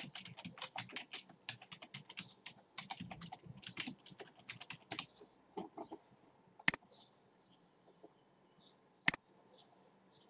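Typing on a computer keyboard, a quick run of key clicks for about five seconds, then two sharp mouse clicks a couple of seconds apart.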